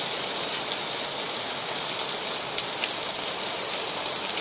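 Steady rain falling on a tent: an even hiss with a few faint ticks.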